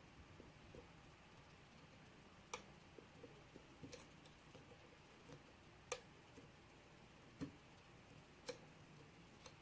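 Small clicks and scraping of a pick and tension wrench working the pins inside an AGB six-pin Euro dimple lock, with about six sharper clicks spaced a second or two apart.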